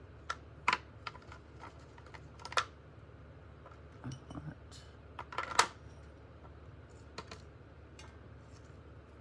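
Scattered sharp clicks and taps of small craft supplies, such as stamps and packaging, being handled and set down on a table. The loudest cluster comes about five and a half seconds in, followed by a few faint ticks.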